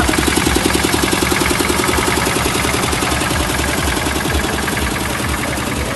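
Old tractor engine running close by with a fast, even knocking beat.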